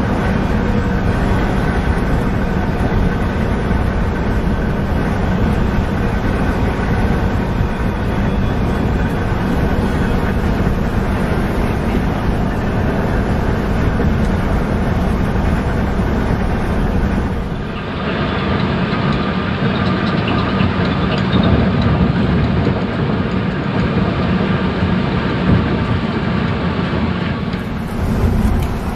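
Intercity bus engine droning steadily with road and tyre noise inside the cab of the coach running on a wet highway. The sound shifts abruptly about two-thirds of the way through.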